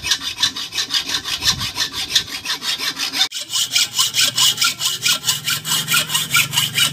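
Hacksaw cutting a slot into a metal handbrake part clamped in a vise, in rapid, even back-and-forth strokes, with a short break about three seconds in.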